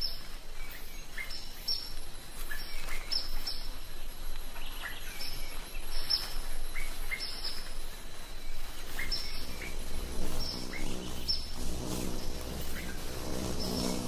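Small birds chirping, short high calls about once a second and often in pairs, over a steady hiss of forest ambience; a low hum comes in about ten seconds in.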